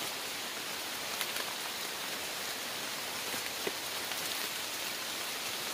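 Steady hiss of rain falling through forest foliage, with a couple of faint clicks about a second in and again past the middle.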